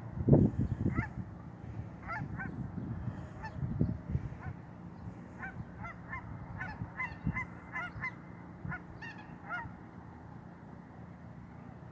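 Geese honking, many short calls in quick succession from several birds, dying away about ten seconds in. Low rumbling thumps, the loudest sound, come in the first second and again around four seconds in.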